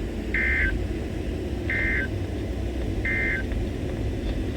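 NOAA Weather Radio Emergency Alert System end-of-message code: three short, identical bursts of warbling data tones a little over a second apart. The radio's steady hiss and hum runs underneath.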